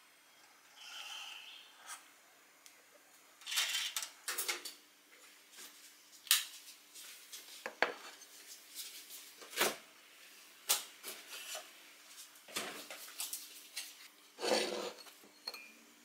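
Ceramic plate and dishes being handled and set down on a wooden table: a string of separate clinks and knocks, a dozen or so, spaced irregularly.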